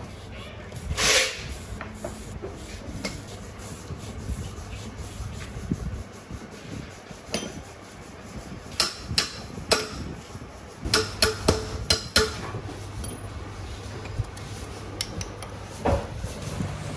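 Scattered metallic clinks and knocks of hand tools and steel engine parts being handled during an engine strip-down, with a quick run of sharp clinks past the middle, over a low steady hum.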